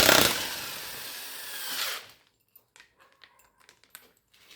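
Electric impact wrench running on a car's wheel bolt: loud hammering at first, then running more lightly as the bolt comes free, stopping about two seconds in. A few faint clicks follow.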